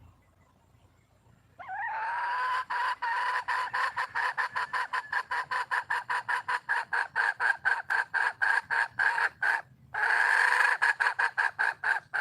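A wild junglefowl hen giving a long run of rapid clucks, about six a second, starting about one and a half seconds in. This is the hen's call for a mate. The clucks break off briefly near ten seconds, then start again.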